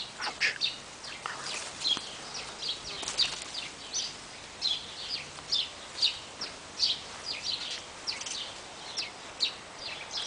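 Small birds chirping around garden bird feeders: short, high-pitched chirps, about two a second, keeping on throughout.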